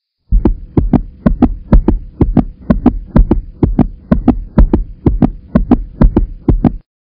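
Heartbeat sound effect: paired lub-dub thumps, about two beats a second, over a faint steady hum, stopping suddenly near the end.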